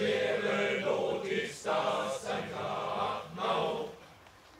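A choir singing a song in several held, sung syllables, with a brief pause near the end.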